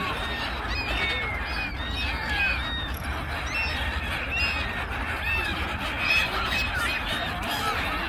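A large flock of gulls calling on the water: many short, harsh cries overlapping without a break, with a steady low rumble underneath.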